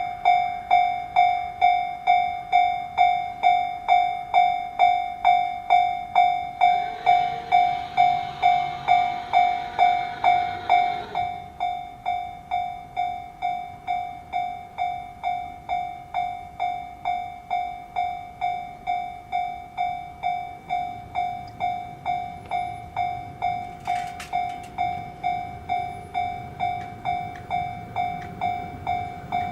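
Japanese level crossing warning bell ringing its steady electronic clang, about one and a half strikes a second. A few seconds of noise pass through about a third of the way in, and a low rumble builds near the end.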